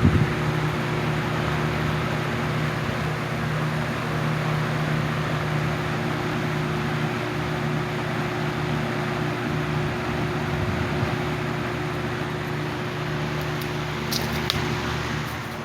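1970s Lakewood 20-inch box fan running steadily on high: an even rush of air over a constant motor hum, with no vibration. A few faint clicks near the end.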